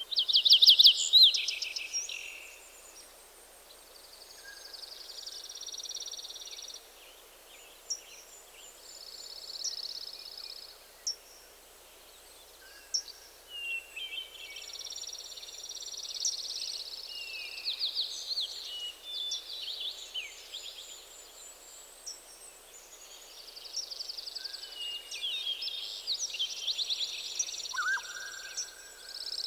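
Several songbirds singing in a forest, with phrases of rapid trills and whistled notes repeating every few seconds over a soft steady hiss. The loudest is a fast trill right at the start.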